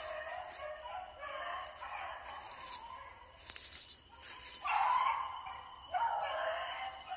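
Beagles baying on a rabbit's trail: a run of drawn-out hound bawls, with a few louder long bays in the second half.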